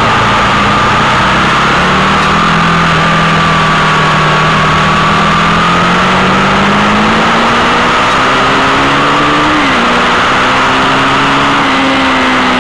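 Sport motorcycle engine running under way, its pitch climbing slowly, then dropping suddenly about three-quarters of the way through and holding steady. Heavy wind rush on the bike-mounted microphone runs under it all.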